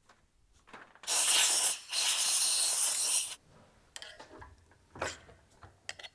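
Two bursts of hissing spray, a short one about a second in and a longer one just after, used to clean a gear-pump part. A few light clicks and knocks of handling follow.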